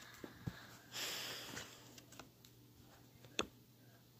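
Faint handling of a Pokémon card binder as a card is taken from its page: a soft rustle about a second in and a couple of small clicks, the sharpest near the end.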